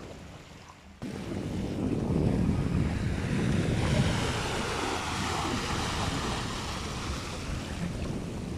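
Small sea waves washing and fizzing over a rocky shoreline. The surf starts suddenly about a second in and is loudest soon after.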